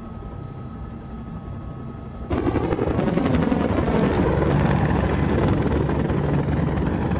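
Helicopter in flight: first a muffled low hum with a steady whine as heard inside its cabin, then, about two seconds in, a sudden jump to the much louder, fuller rotor and engine noise of the helicopter flying past outside.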